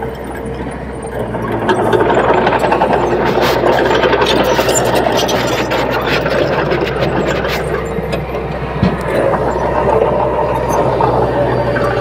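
Small crawler bulldozer's diesel engine running under load as it pushes soil and stones with its blade, getting louder about two seconds in, with scattered sharp clanks.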